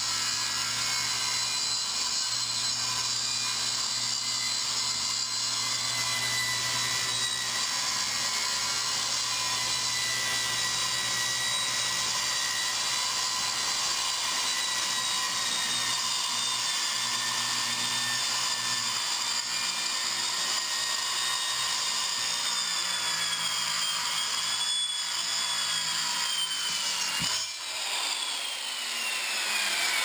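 Circular saw with a laminate blade mounted backwards, cutting through a garage door section with a steady high-pitched whine. Near the end the cut finishes and the whine falls in pitch as the blade spins down.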